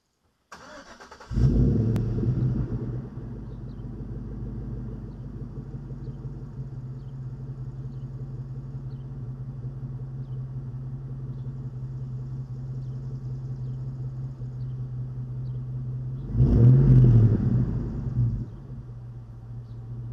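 A 2004 Chevrolet Silverado's 4.8-litre V8 breathing through a single Borla XR-1 muffler is started: the starter cranks briefly, the engine catches with a loud flare of revs, then settles into a steady, deep idle. Near the end it is revved once, the pitch rising and falling before it drops back to idle.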